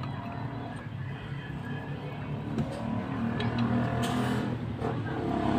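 A motor engine running nearby and growing louder toward the end, with a few light metal clicks and a short scrape from a wrench working on a cast-iron hand pump's handle pivot.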